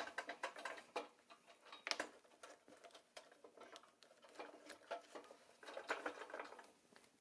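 Black rubber crawler track being worked over the painted steel wheels of a toy dozer by hand: irregular clicks, taps and rubbing of rubber against metal, coming in clusters.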